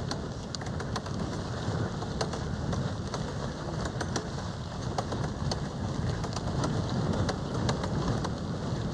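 Wind buffeting the microphone outdoors: a steady low rumble with many scattered crackles and clicks.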